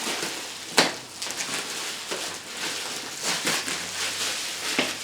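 Packaging being handled and unwrapped: a steady crinkling rustle, with a sharp click about a second in and another near the end.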